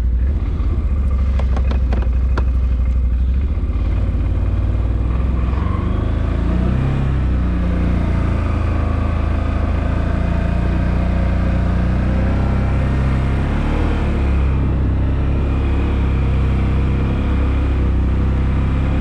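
Small off-road utility vehicle engine running steadily as it is driven slowly, its pitch shifting a little with the throttle. A few clicks and rattles come in the first few seconds.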